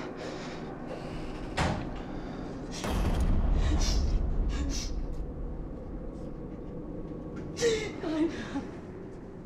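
A door bangs sharply about one and a half seconds in, followed by a loud, low rumble with clatter lasting about two seconds. Near the end come two short vocal cries.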